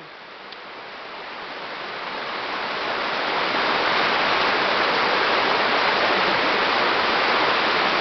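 Rushing water of a mountain waterfall, a steady roar of noise that grows louder over the first three or four seconds and then holds level.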